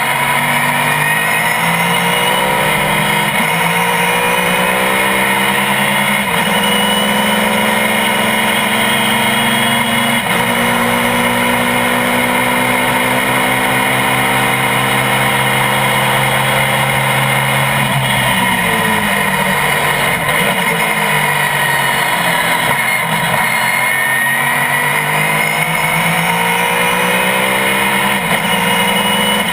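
A GT-1 class road-racing car's engine at full throttle, its pitch climbing through the gears with three quick upshifts in the first ten seconds, then a long flat-out pull. Past the middle the pitch falls away as the car brakes and downshifts, and it climbs again as the car accelerates out of the corner near the end.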